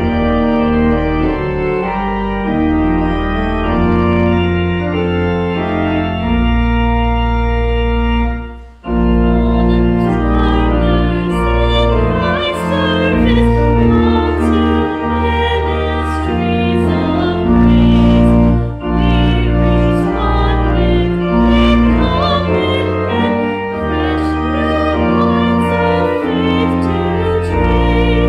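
Organ music: slow, sustained chords moving from one to the next, with a short break about eight seconds in, after which a higher melody line with a wavering tone plays over the chords.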